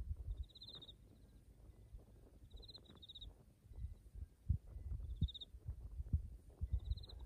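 Hands pressing and rubbing over a clothed back during a massage, heard as low muffled thumps and rustling. A short, high trilled chirp repeats about every two seconds.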